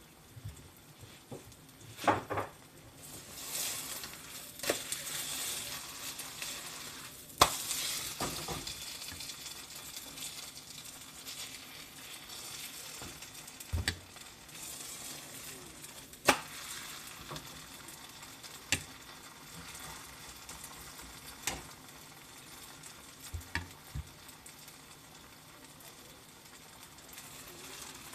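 Food sizzling in a frying pan while being stirred, with sharp clinks of a utensil against the pan every few seconds.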